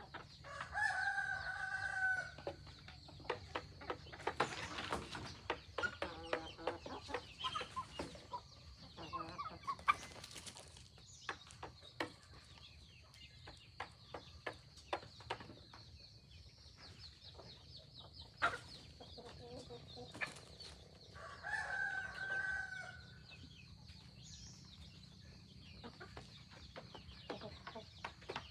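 Free-range chickens clucking, with a rooster crowing twice: once about half a second in and again about 21 seconds in, each crow lasting about a second and a half. Many small clicks and taps are scattered throughout.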